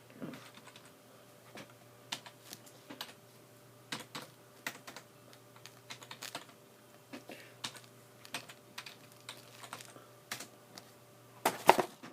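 Irregular clicking of keys being typed on a computer keyboard, over a faint steady hum, with a few louder knocks near the end.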